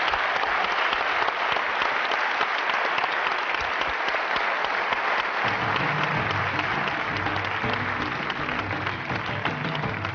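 A studio audience applauding, with music and a bass line coming in about halfway through under the clapping.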